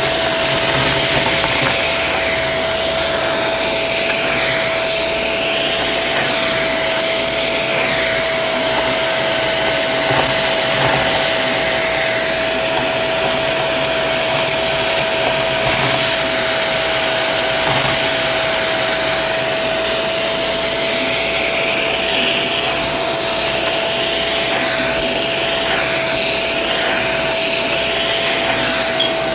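Shark vacuum cleaner with its crevice tool running steadily with a high whine, sucking at a pile of sequins and confetti on carpet, with crackly rattling and a few sharp clicks as pieces are drawn into the nozzle.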